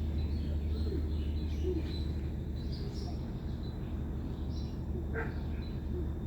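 A steady low drone, with birds chirping faintly and intermittently over it.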